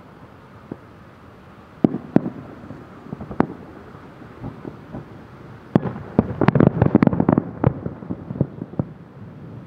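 Aerial firework shells bursting: a few separate bangs in the first few seconds, then a rapid cluster of bangs around six to eight seconds in that thins out near the end.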